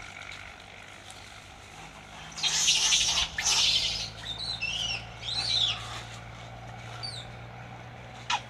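Animal calls: a harsh two-part screech about two and a half seconds in, then a string of high, arching chirps and squeals.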